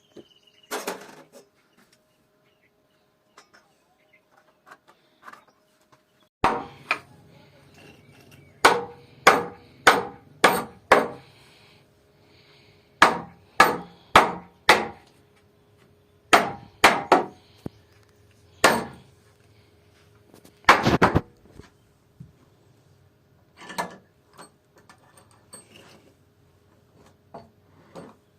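A hammer striking wood in short runs of sharp blows, about two a second, with pauses of a second or two between runs.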